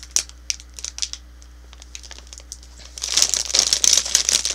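Plastic candy packages crinkling as they are handled and turned over in the hands. There are a few sharp crinkles at first, then about three seconds in comes a longer, louder stretch of continuous crinkling.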